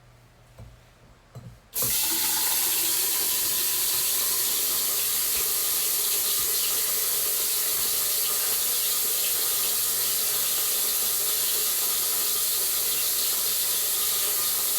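A few soft knocks, then a kitchen tap turned on about two seconds in, running steadily as it fills the bottle of a pet water fountain.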